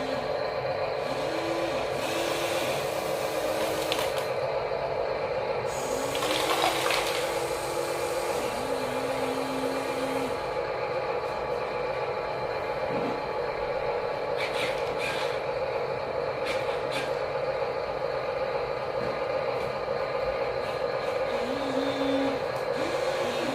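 Small electric motors of toy radio-controlled construction machines whirring steadily, their whine stepping and gliding up and down in pitch as the motors speed up and slow down, with a few brief clicks in the second half.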